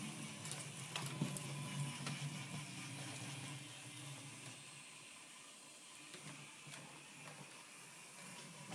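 Faint whir of a Faller Car System HO model truck's small electric motor and gearing as it drives along the road, with a few soft clicks about a second in; the hum fades after about three and a half seconds.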